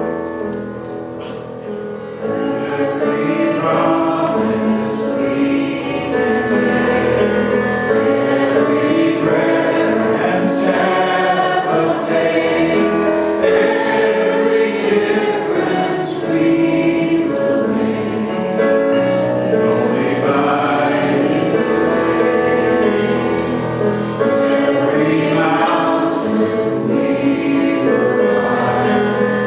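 Church praise band performing a worship song: two women and a man sing together into microphones over acoustic guitar, bass guitar and keyboard. The music swells to full volume about two seconds in.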